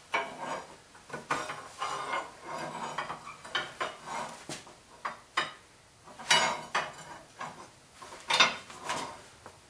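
Steel crowbars clanking and scraping against a rusty blacksmith's vise as its seized jaws are pried open: a run of uneven metal knocks and grinding scrapes, with two louder clanks in the second half.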